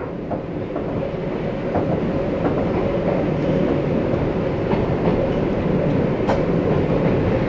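Running noise of an Izuhakone 1100 series (ex-Seibu 701 series) electric train heard from its cab as it rolls along a station platform: a steady rumble of wheels on rail with a few faint clicks and one sharper click about six seconds in, growing slightly louder.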